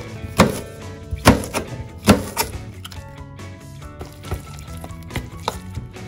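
Kitchen knife chopping cabbage on a plastic cutting board: four sharp chops in the first two and a half seconds. After that come lighter knocks and clinks as cabbage and egg batter for okonomiyaki are stirred in a stainless steel bowl.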